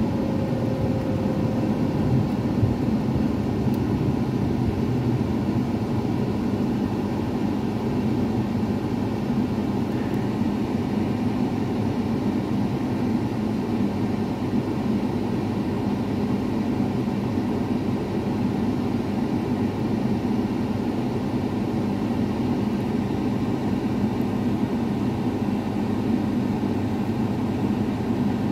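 Steady road and engine noise inside a moving car's cabin, a low even rumble with no distinct events.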